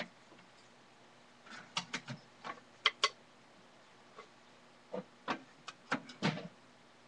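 A string of short, sharp clicks and light knocks, about ten spread over several seconds, the sharpest about three seconds in: small objects being handled and knocked. A faint steady hum runs underneath.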